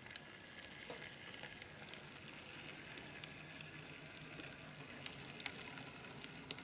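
Small brass model steam locomotive running along model railway track toward the microphone: a faint, steady whir and hiss that grows slightly louder, with a few sharp clicks of the wheels over rail joints in the last couple of seconds.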